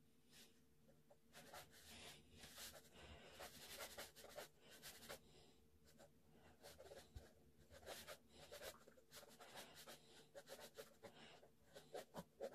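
Ballpoint pen scratching faintly across paper in runs of quick sketching strokes, with brief pauses between runs.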